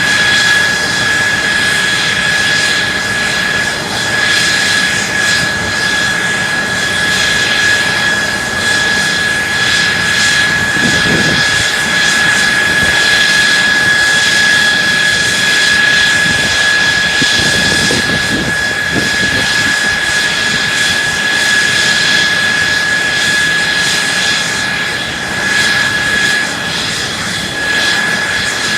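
Mitsubishi F-2's General Electric F110 turbofan running steadily on the ground: a loud jet rush with a high, constant whine.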